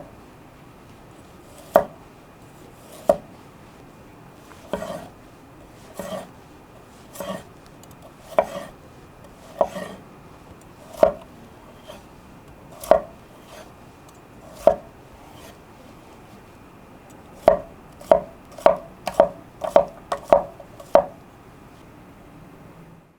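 Freshly sharpened Sakai Takayuki tall bunka knife slicing through a carrot and a potato, each cut ending in a sharp knock of the blade on the cutting board. Single slices come every second or so, then a quick run of about seven cuts near the end.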